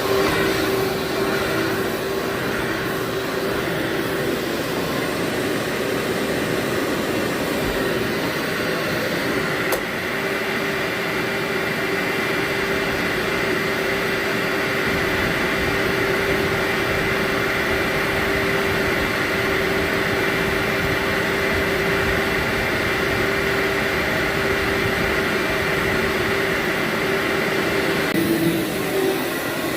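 Vacuum cleaner running steadily on carpet, a continuous motor hum with a steady whine and airflow hiss; the sound shifts slightly near the end.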